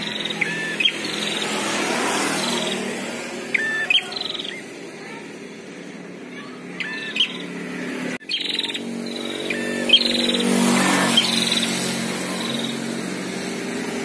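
Prinias (prenjak) calling back and forth, short sharp chirps with quick up-and-down glides, in groups every second or two. A vehicle engine hums underneath, rising about ten seconds in.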